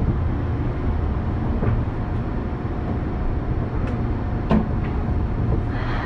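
Onboard sound of a Tokyo Metro 03 series chopper-control car: a steady low rumble with a few light knocks.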